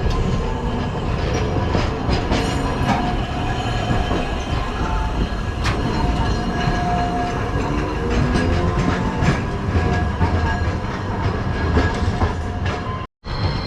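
Hakodate city tram running on its rails: a steady rumble of wheels with clicks from the track and a whine that slides in pitch.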